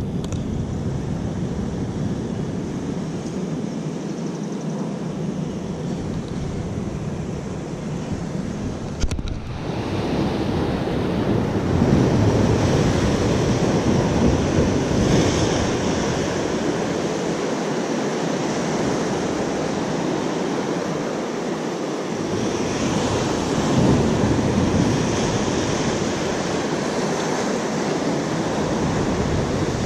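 Rough sea surf washing over rocks, with wind buffeting the microphone. A brief click comes about nine seconds in; after it the surf is louder, swelling and easing as the waves come in.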